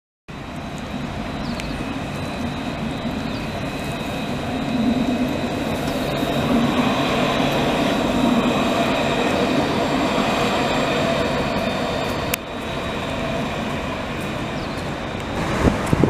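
Alstom Citadis light-rail tram passing close by: rolling noise with a steady high electric whine, loudest in the middle as the cars go past. About twelve seconds in, the sound changes abruptly to a steadier street noise.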